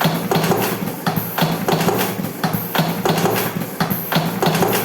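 Electric cigarette-rolling machine running, with a steady hum and an even clacking about two to three times a second.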